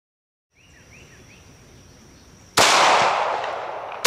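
A single shot from a Bersa Thunder 380 Plus pistol firing .380 ACP, about two and a half seconds in, its report trailing off slowly over more than a second; a second shot starts right at the end. Before the first shot there is only a faint outdoor background with a few short chirps.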